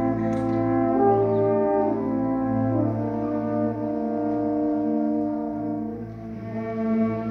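A full concert band of woodwinds, brass and percussion playing slow, sustained chords, with the brass to the fore. The chords shift about a second in and again near three seconds, and the sound eases briefly near six seconds before swelling again.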